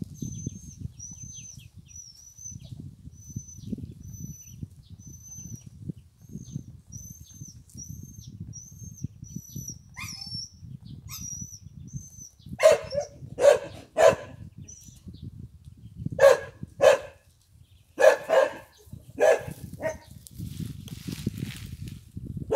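A dog barking in short bursts of several barks, starting about halfway through; these are the loudest sounds. Before the barking, high chirps repeat steadily about twice a second.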